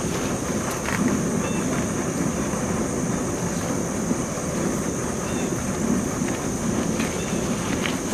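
Steady wind rumbling on the microphone, with a constant thin high-pitched hiss or whine above it.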